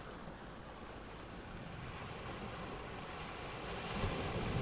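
Sea waves washing in over a rock and pebble shore: a steady surf hiss that swells louder near the end.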